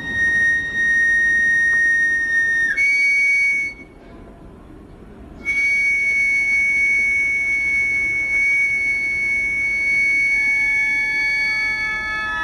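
A high, flute-like wind instrument playing long held notes. One steady tone steps up slightly in pitch, breaks off for about a second and a half, then resumes, with further lower tones joining near the end to form a chord.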